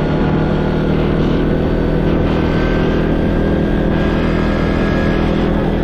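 ATV engine running at a steady, unchanging pitch while the quad is ridden along, with a constant noisy rush over it.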